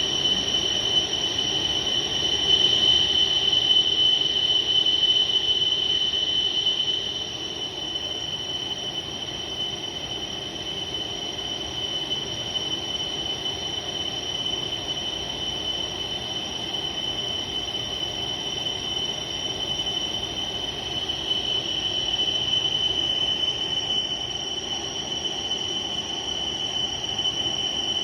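Machine tool cutting a metal flange: a steady high-pitched whine over continuous running noise, a little louder for the first seven seconds or so.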